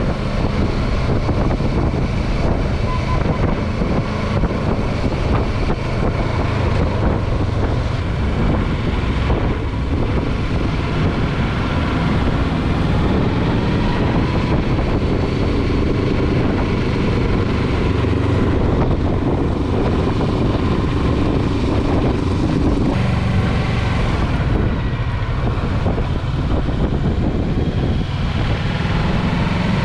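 Motorcycle engine running while riding, its note shifting up and down with speed, mixed with wind rushing over the microphone.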